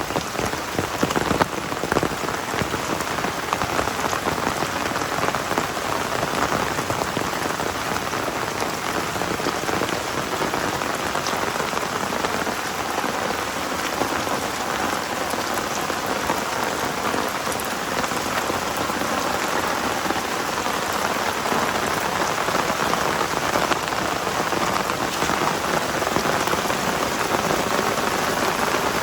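Heavy rain falling steadily, a dense patter of drops on surfaces, with a few sharper drip ticks in the first couple of seconds.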